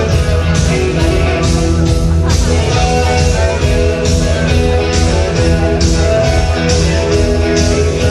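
Loud rock-and-roll music with guitar and a steady drum beat, played through a sound system.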